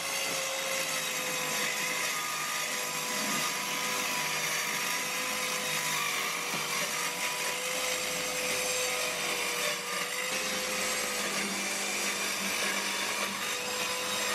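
TackLife 4-inch corded mini circular saw running steadily as it cuts through OSB: an even motor whine over the noise of the blade chewing through the board.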